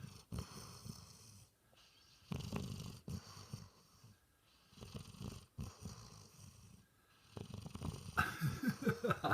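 A sleeping pet snoring, one slow snore every two to three seconds with quiet gaps between breaths.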